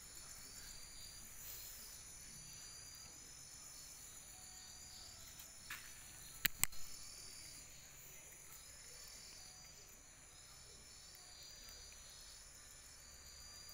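Night insects trilling steadily, with a short chirp repeating a little faster than once a second. A few sharp clicks a little past halfway through are the loudest sounds.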